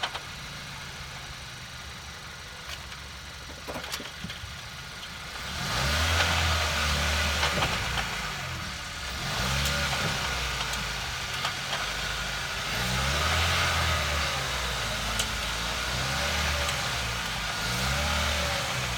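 Kia Ceed JD engine idling, then revved up and let fall back about four times, with a knock that the owner is chasing.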